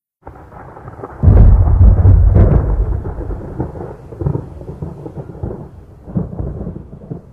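A lightning strike and thunder. A low rumble starts, then about a second in comes a sharp, loud crack, followed by a long rolling rumble that slowly fades with a few smaller swells.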